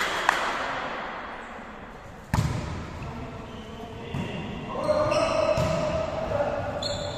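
Volleyball rally in an echoing sports hall: a sharp hit on the ball about two seconds in, then further ball contacts, with shoes squeaking on the wooden floor and players shouting.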